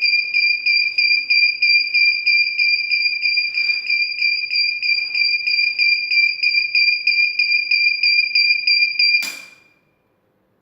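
Gas detector alarm panel on an LPG central pipe system sounding a rapid, steady high-pitched beeping, triggered in a test of the first detection zone. It cuts off abruptly with a click about nine seconds in, and another short click comes near the end.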